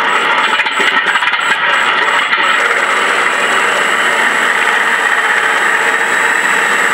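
ShockWave sound module playing the SFX7 B-25 set's simulated radial-engine startup and idle through 4-inch Visaton speakers in the model's nacelles. The sound is uneven for the first two and a half seconds, then settles into a steady idle with a thin steady high whine above it.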